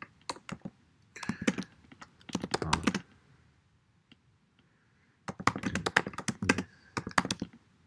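Typing on a computer keyboard: quick runs of key clicks, broken by a pause of about two seconds near the middle.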